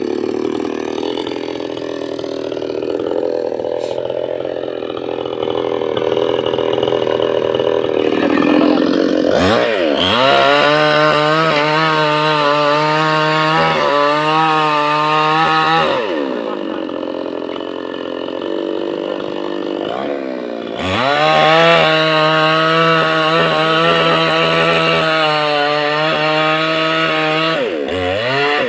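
Chainsaw cutting a palmyra palm trunk. It runs under load at first, revs up to full speed about nine seconds in, and eases off around sixteen seconds. It revs up again around twenty-one seconds and drops back near the end.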